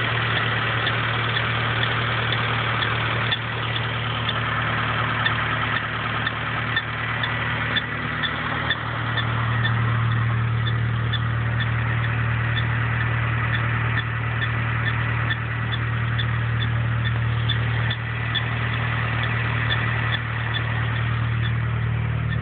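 Engine idling with a steady hum and a short, high squeak repeating about twice a second, which the owner puts down to a pulley or the belt.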